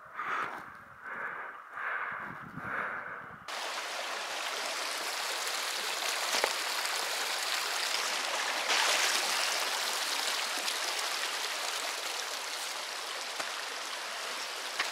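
Heavy rhythmic breathing, about one breath every 0.7 seconds, then an abrupt change about three and a half seconds in to the steady rush of a flowing canyon stream.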